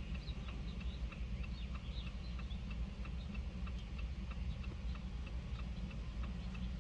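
Jeep Compass hazard-light flasher ticking, a steady, evenly spaced tick-tock, over a low steady hum.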